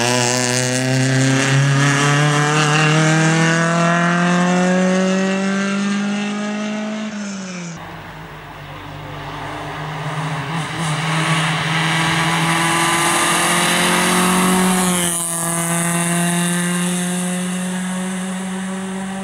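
Suzuki Swift rally car's engine at full throttle on a rally stage, its pitch climbing steadily for several seconds. The pitch falls about seven seconds in, climbs again, and falls once more about fifteen seconds in before holding steady.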